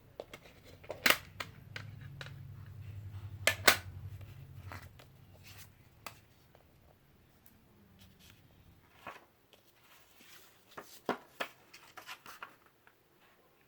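Handling of a CD jewel case and its paper booklet: two sharp plastic clicks, about a second in and near four seconds, over a low rumble of handling noise, then scattered faint clicks and rustles.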